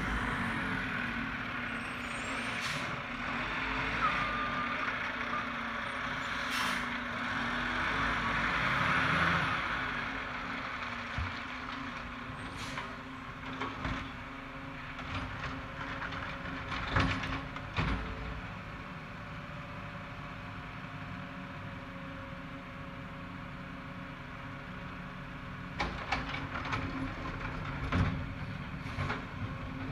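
Automated side-loader garbage truck's diesel engine running as it drives up and pulls to the curb, loudest as it passes about nine seconds in, with air-brake hisses. Sharp clanks and knocks come now and then, several close together near the end as the side arm works at the trash carts.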